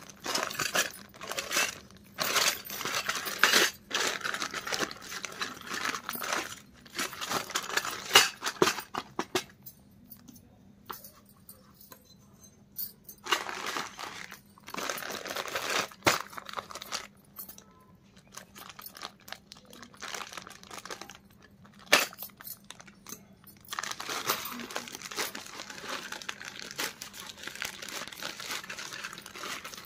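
Plastic courier mailer bag crinkling and rustling as it is handled and pulled and torn open by hand. The noise comes in irregular bursts with a few short pauses and some sharp clicks.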